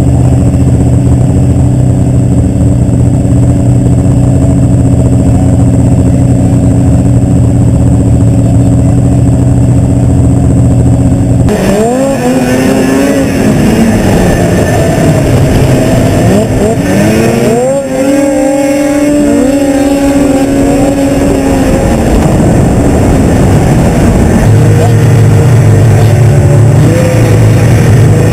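Snowmobile engine heard from on board the sled: it runs at a steady pitch for about the first eleven seconds, then revs up and down repeatedly as the sled accelerates and slows around the course, and settles back to a steady pitch for the last few seconds.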